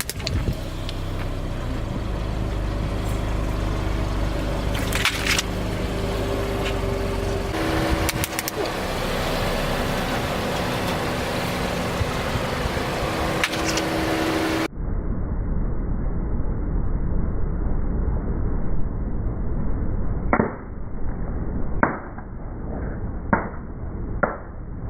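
Car engine running steadily, then the tyres rumbling over objects, with four sharp cracks near the end as things are crushed under the wheels.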